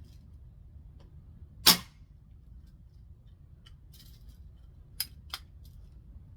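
A vintage Daisy 1200 CO2 BB pistol fires once with a sharp pop, the loudest sound, about a second and a half in. Near the end come two sharp clicks close together as the pistol's tab is pushed forward to charge it for the next shot.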